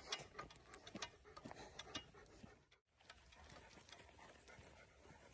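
Faint footfalls and light clicks from a Newfoundland dog walking on pavement while pulling a small hay cart, about two clicks a second, with a brief silent break near the middle.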